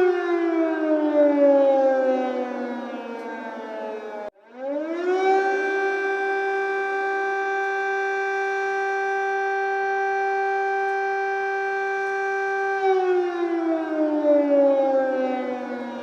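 Ukrainian civil-defence air raid siren wailing. Its tone slides down over about four seconds and cuts out for an instant. It then climbs quickly back to a steady high tone, holds it for about seven seconds, and slides down again near the end.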